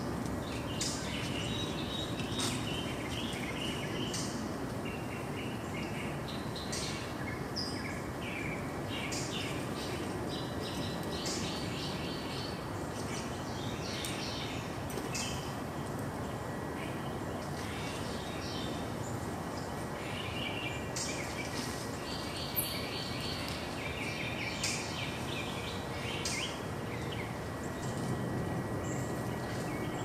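Wild songbirds giving many short chirps and chip calls at irregular intervals, over a steady rushing background noise.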